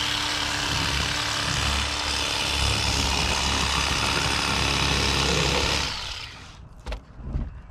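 Electric fillet knife running as its blade cuts along the side of a crappie, a steady motor buzz. It stops about six seconds in.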